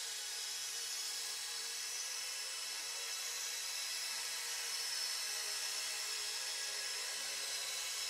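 Electronic synthesizer music: a steady, high shimmering drone of many held tones over a hiss, with no beat and nothing in the bass.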